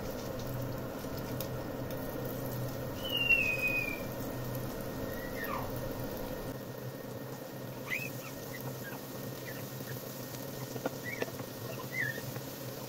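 Sliced onions frying in hot oil in a non-stick pan, a soft steady sizzle. A few faint, short high squeaks or chirps sound over it, one longer falling one a few seconds in.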